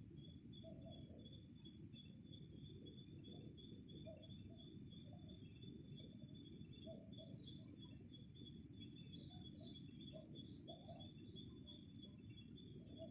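Night insect chorus: crickets trilling in steady high-pitched bands, one with a fast pulsing call. Scattered short chirps from other night creatures sound over a low hiss.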